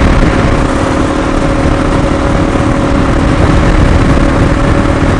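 Motorcycle engine running at a steady cruise, heard from the rider's seat, with an even hum that holds its pitch under heavy wind rumble.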